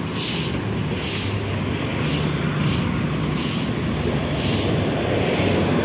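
Road traffic passing on a city street: cars and motorcycles driving by, with a steady engine hum and a hiss that swells and fades about once a second.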